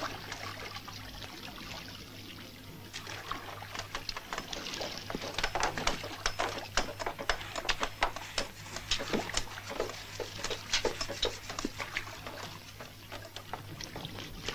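Rowboat being rowed: oars splashing in the water with irregular sharp knocks and clicks, getting busier about four seconds in, over a steady low hum.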